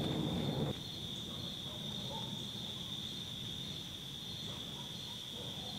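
Crickets trilling in a steady, unbroken high-pitched chorus.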